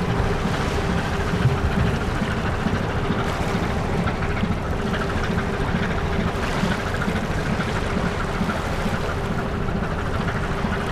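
Steady riverside ambience: wind and moving water with a low engine drone and a steady hum.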